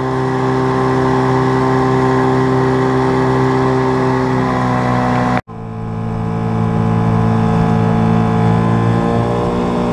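Small Mercury tiller outboard motor running steadily under way, pushing the boat along. It cuts out for an instant about five seconds in, then comes back slightly lower in pitch and climbs gently.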